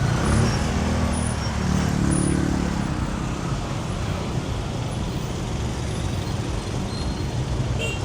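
Busy street traffic at night: a steady rumble of vehicle engines and road noise. A nearby engine's pitched hum stands out and rises slightly about one to three seconds in.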